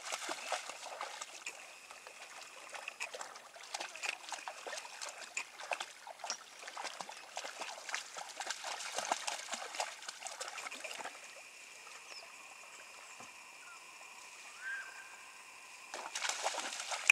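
Small irregular splashes and trickling of water from a dog wading in shallow river water and a kayak paddle dipping, growing quieter about eleven seconds in. Near the end, louder splashing from kayak paddle strokes.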